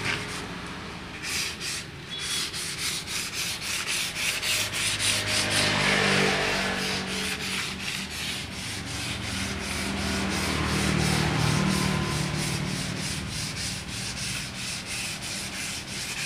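Hand-sanding of cured body filler on a pickup's steel front panel with sandpaper: quick, even back-and-forth rubbing strokes, smoothing the filler before primer.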